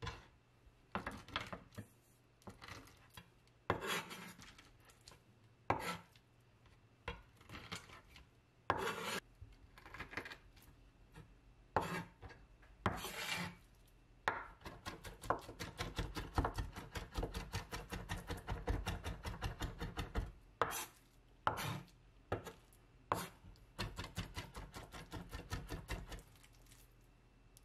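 Cleaver chopping raw peeled shrimp on a bamboo cutting board, mincing them into a paste. At first there are scattered single knocks and scrapes. About halfway a fast, even run of chopping starts, followed by a few more knocks and quick chops before it stops near the end.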